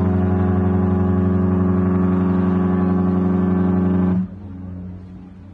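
Cruise ship's horn sounding one long, deep, steady blast that cuts off about four seconds in.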